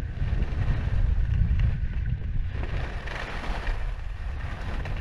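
Wind buffeting a GoPro MAX's microphone as a skier runs down a groomed slope, a steady low rumble. Over it, the hiss of skis scraping across packed snow, louder for about a second around three seconds in as the skier turns.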